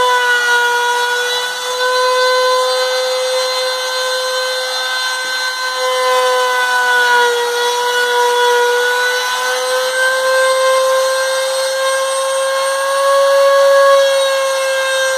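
Makita router spindle on a homemade CNC machine, running at high speed as its bit cuts a letter out of a wooden board. The motor gives a steady high whine whose pitch dips and rises slightly as the cutting load changes, over a rasping cutting noise.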